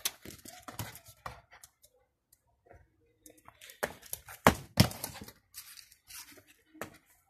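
Pomeranian puppy pushing and biting a light plastic football on stone paving: scattered scuffs, scrapes and knocks of teeth, claws and ball, with two sharper knocks a little past the middle.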